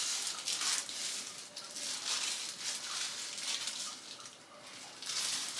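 Gloved hands working hair dye through hair, making soft, irregular rustling and squishing strokes.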